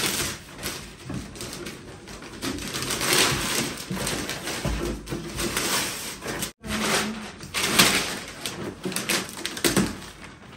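Gift wrapping paper being ripped off a large box and crumpled: irregular crackly rustling and tearing, with a brief break in the sound about six and a half seconds in.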